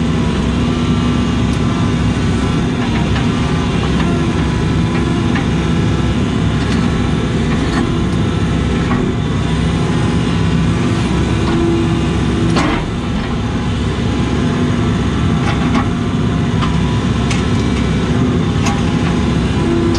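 Case CX80 excavator's diesel engine running steadily with its hydraulics working the boom and bucket, heard from inside the cab, with a few light clicks and knocks, the clearest about two-thirds of the way in.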